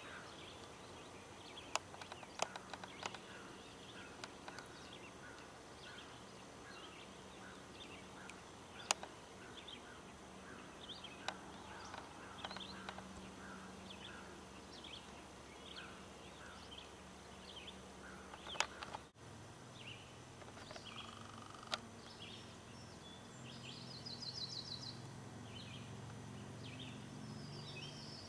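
Songbirds chirping and singing from the lakeshore, with a few sharp knocks and a faint low hum underneath. A brief dropout comes about two-thirds of the way through, and a fast high trill follows a few seconds later.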